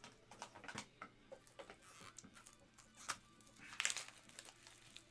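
Soft clicks and rustles of trading cards and plastic card holders being handled on a desk, with a louder rustle about four seconds in.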